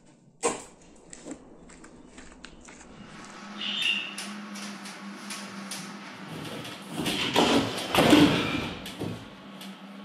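Knocks, bumps and clatter from the wooden aviary frame being taken apart and its pieces handled. A sharp knock comes about half a second in, and a louder stretch of scraping and clattering comes about seven to eight and a half seconds in.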